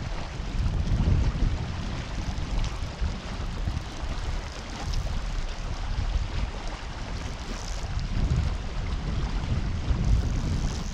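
Wind buffeting the microphone in uneven gusts, over a steady rush of flowing river water.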